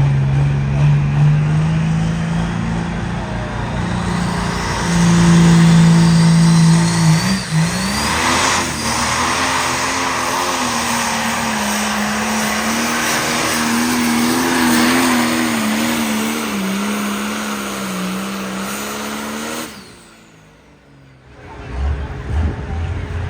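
A pulling vehicle's engine running hard at high revs under load during a pull, its pitch wavering up and down. The sound drops away suddenly about twenty seconds in.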